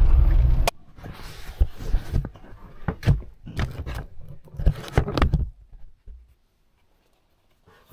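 Vehicle engine and road rumble inside a cab that cuts off abruptly under a second in. Then close rustling and scraping of a winter jacket and work gloves being pulled on, with a few sharp knocks, fading to near silence near the end.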